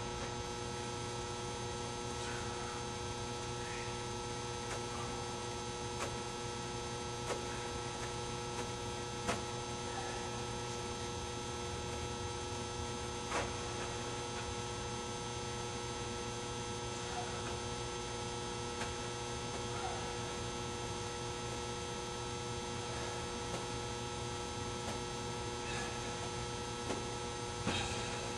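Steady electrical hum made of several constant tones over a low hiss, with a few faint, scattered clicks.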